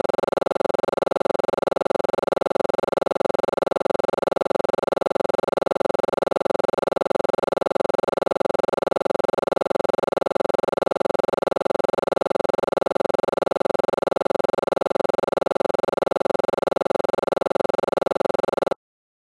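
A steady, buzzing drone of several held pitches, pulsing rapidly and evenly, that cuts off abruptly near the end.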